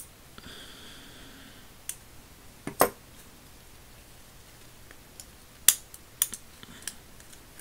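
Sharp metal clicks and small knocks from the vintage Kraeuter 32070 ratchet's head and retaining ring being handled and pressed into place, about six clicks in all, the loudest a double click about three seconds in and a single click near six seconds.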